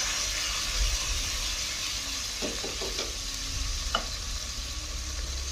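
Ground spice paste sizzling in hot oil with sliced shallots and spring onions, a steady frying hiss with a few faint ticks around the middle.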